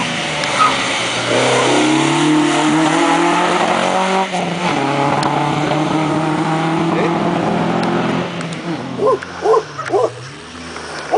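Historic rally car engine pulling hard out of a corner, with a brief dip about four seconds in as it changes gear, then holding steady before fading. A few short, sharp sounds follow near the end.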